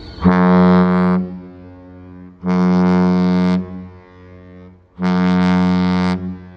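A cruise ship's horn sounding three blasts of one steady low pitch, each a little over a second long and about two and a half seconds apart, each followed by a short echo.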